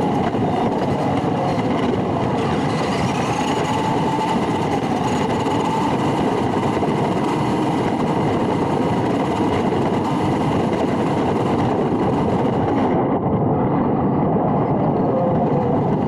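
Electric motor and gearbox of a radio-controlled toy pickup truck running steadily, a rough whirring with a faint whine that wavers up and down in pitch.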